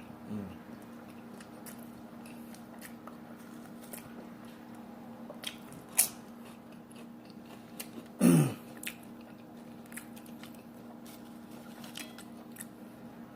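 Close-up mouth sounds of a person chewing and biting into a cheeseburger, with scattered sharp clicks and crunches, the loudest about six seconds in. A short falling hum of the voice comes about eight seconds in.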